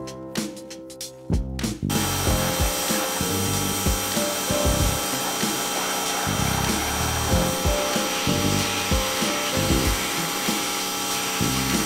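Pressure washer spraying a jet of water onto a motorcycle: a loud, steady hiss that starts abruptly about two seconds in and cuts off near the end, over background music.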